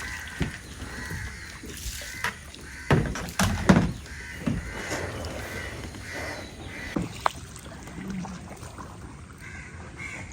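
Crows cawing repeatedly, with a few loud knocks about three to four seconds in.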